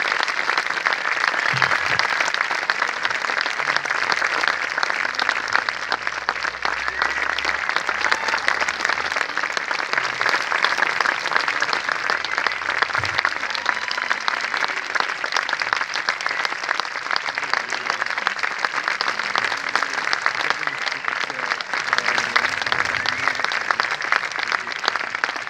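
Audience applauding steadily, a dense, even clapping that holds at the same level throughout.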